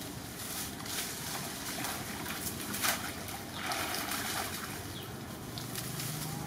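Macaques splashing as they run and wade through a shallow muddy puddle: a series of short splashes, the loudest a little before halfway, then a longer spell of splashing and sloshing.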